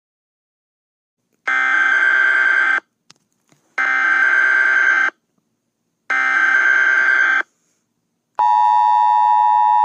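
Emergency Alert System tones: three identical bursts of SAME header data, each a little over a second long with short gaps between, then the steady two-tone EAS attention signal starting about eight seconds in.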